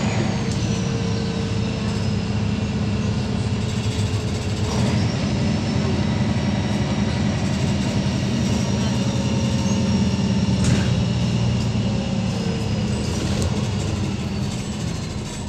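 MAN NL263 city bus under way, heard inside the cabin: its MAN D2866 inline-six diesel runs loud and steady, with a thin whine that glides in pitch as the bus drives and the ZF automatic gearbox works. A couple of short knocks sound from the body, and the engine note eases near the end.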